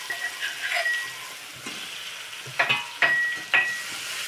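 Onion, tomato and ginger-garlic paste sizzling in oil in a black wok. A spatula stirs and knocks against the pan several times in the second half, each knock ringing briefly.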